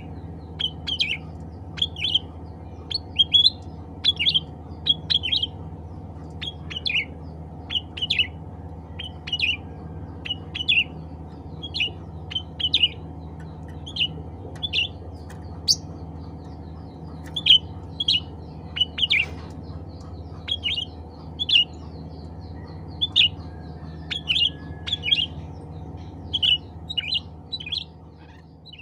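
Cucak ranting calling with short, sharp notes, repeated about once or twice a second and often in quick pairs, over a steady low hum.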